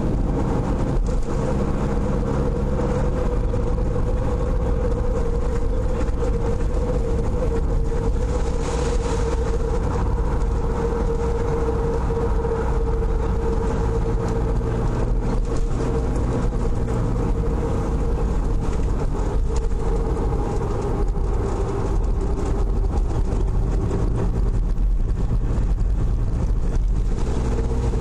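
A car driving along, heard from inside: a steady mix of engine hum and tyre and road noise, with a constant drone and low engine tones that shift a little in pitch.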